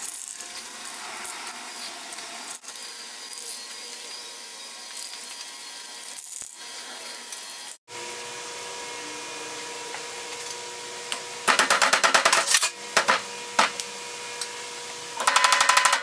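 Plastic end caps being pushed into the ends of square steel tubing: two loud bursts of rapid clicking and scraping, the second near the end, over a faint steady hum.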